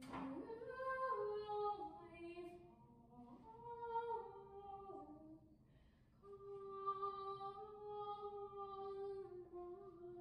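A woman singing a slow melody quietly and unaccompanied, holding long notes that step up and down, with a short break about halfway through. A brief sharp knock sounds right at the start.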